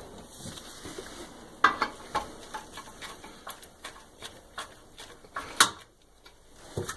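Irregular light metal clicks and taps from a nut driver tightening the closet-bolt nuts that hold a toilet bowl to the floor flange. Two sharper clicks stand out, about one and a half seconds in and again near five and a half seconds.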